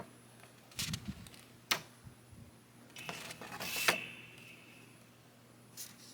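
Plastic joints and panels of a Transformers Deluxe Optimus Prime action figure clicking and snapping as it is transformed into truck mode. There are a few separate sharp clicks, and a run of clicks with a short creak of plastic about three to four seconds in, the loudest near four seconds.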